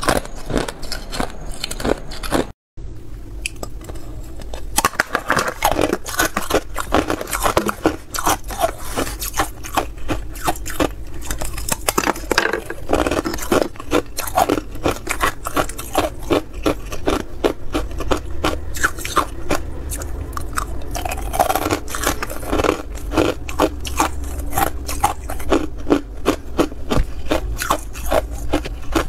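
Ice being bitten and crunched between the teeth close to the microphone: a dense run of sharp, crackling crunches, broken by a brief dropout just under three seconds in.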